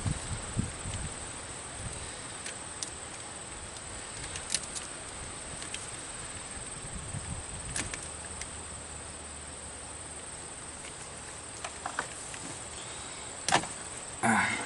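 Scattered light clicks and taps of battery cable and tools being handled while the cable end is trimmed, over a steady faint high-pitched whine, with a sharper click near the end.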